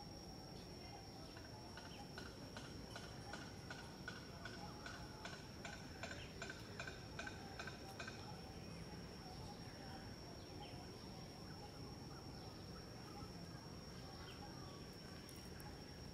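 Faint outdoor ambience: a steady high insect drone, with a rapid series of ticking calls at about three a second during the first half that stop about eight seconds in.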